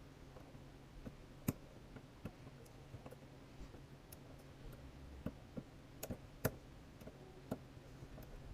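Scattered small metallic clicks and ticks of picking tools working inside a Kwikset Smartkey padlock, with the sharpest clicks about one and a half seconds in and again about six and a half seconds in.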